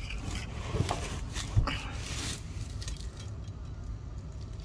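Light metal clatter and scraping as a steel tape measure is handled against an aluminium swivel seat post, with two sharp knocks about a second and a second and a half in, the second the louder. A steady low rumble runs underneath.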